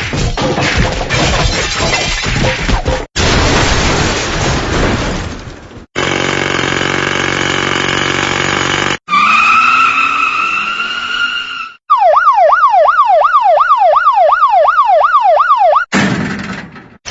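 A run of separate short sound effects with hard cuts between them: dense noise for about the first six seconds, then a steady buzzing tone, then a siren tone that rises and holds. Near the end comes a yelp siren sweeping rapidly up and down, about two and a half times a second, for some four seconds.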